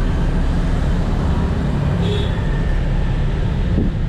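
Steady, loud street traffic noise: motorbike and car engines running and passing close by in a busy city street.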